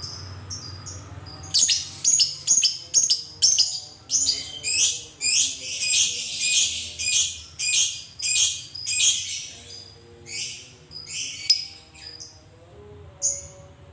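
Fischer's lovebird giving a long run of shrill, repeated chirps: the drawn-out 'ngekek' chatter. The chirps start quickly, about three a second, then turn fuller and slower, and stop shortly before the end.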